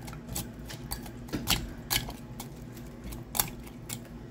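Plastic spoon tapping and clicking against the inside of a ceramic mug while crushing milk-soaked Oreo cookies, in irregular sharp taps a few times a second.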